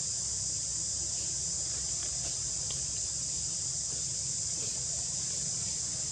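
A steady, high-pitched chorus of insects, droning without a break, over a low rumble.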